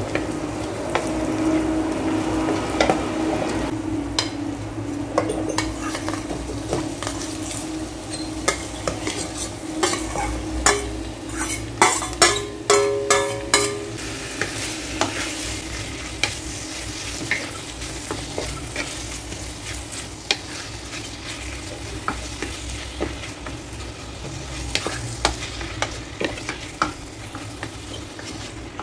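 Garlic, onion and minced meat sizzling in oil in a rice cooker's nonstick inner pot while a wooden spatula stirs and scrapes, with scattered clicks. A run of sharp knocks and clicks comes about halfway through, over a steady low hum.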